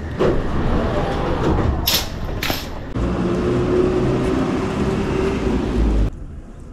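Two sharp clacks about two seconds in, then a steady machine hum with a low drone that cuts off suddenly near the end.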